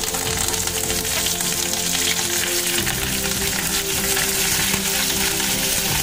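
Hot oil sizzling steadily as curry leaves and green chillies fry with whole spices in a kadai.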